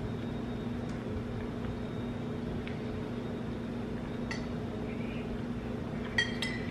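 A metal utensil clinking and scraping on a plate a few times while muffin is eaten, with a small cluster of clinks near the end, over a steady low hum.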